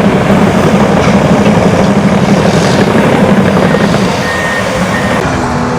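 Steady, loud rumble of heavy construction machinery running, with two short high beeps about four seconds in.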